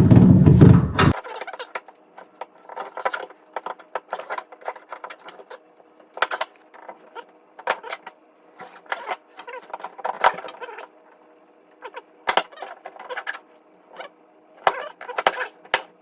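Hand tools clicking and clinking against metal in irregular, quick strokes while a seized tailgate bolt is worked on, over a faint steady hum.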